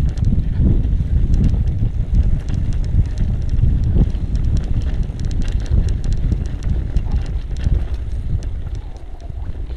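Wind buffeting the microphone of a riding e-bike on a dirt trail: a steady low rumble with scattered sharp ticks and rattles from the bike and its tyres over rough ground.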